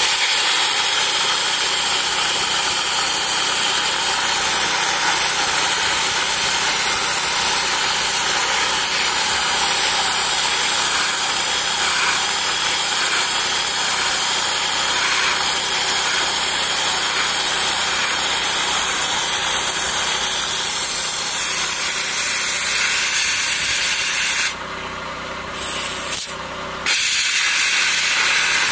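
Dry ice blasting gun firing a steady jet of compressed air and dry ice pellets against the steel rim of a wire wheel: a loud, even hiss. It stops about 24 seconds in and starts again about two seconds later.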